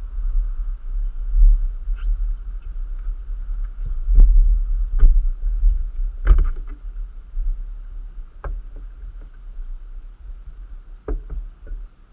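An off-road ride on an ATV trail: heavy low wind-buffeting rumble on the microphone over a steady hum, broken by sharp knocks and rattles every second or two, loudest around four to six seconds in.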